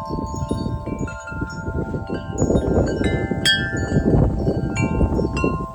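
Wind chimes ringing, their notes struck at random and left to ring. Beneath them is a heavy rush of blizzard wind buffeting the microphone, which gets louder about halfway through.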